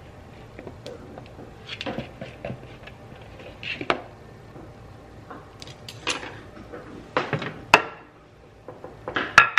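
A spatula scraping and tapping against a plastic mixing bowl, with scattered light knocks and clatters of utensils and dishes on a stone countertop; the sharpest knocks come near the end.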